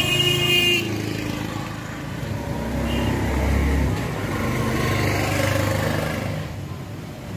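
Road traffic: a vehicle horn sounding through the first second, then the running engines of passing motor vehicles, with a low engine rumble swelling and fading in the middle.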